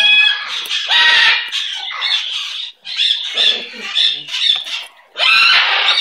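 Parrot squawking: loud, harsh squawks twice near the start and once near the end, with quieter chirps and calls in between.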